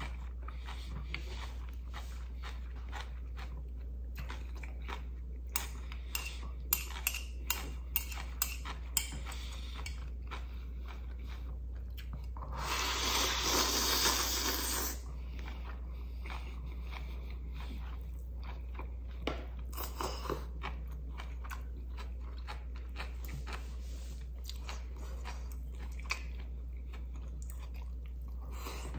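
A person eating instant ramen noodles close to the microphone, over a steady low hum. There is chewing throughout, a quick run of sharp crunchy clicks from about six to nine seconds in, and then a loud slurp of noodles and broth from the bowl lasting about two seconds, around thirteen seconds in.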